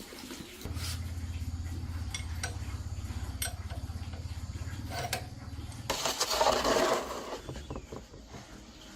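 A small motor runs with a low, fast-pulsing hum for about five seconds, with a few light metallic clinks. Then it stops, and a short loud hiss follows.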